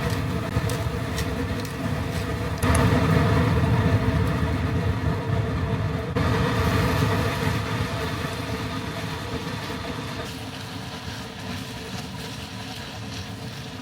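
An electric appliance motor running steadily with a whirring hum, stepping up in level about 3 seconds in and easing slightly toward the end.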